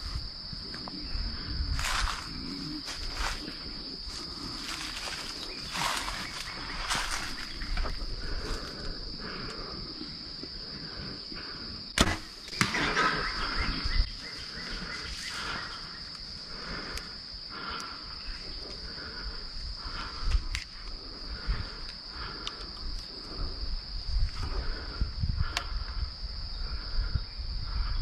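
Steady high-pitched insect chorus, with scattered clicks and rustles from someone moving through brush and leaf litter. The sharpest click comes about twelve seconds in.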